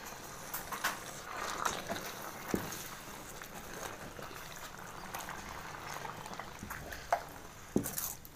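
Hot, thick maida halwa with ghee being stirred in a metal pan: a steady low hiss with scattered sticky squelches and short scrapes of the ladle.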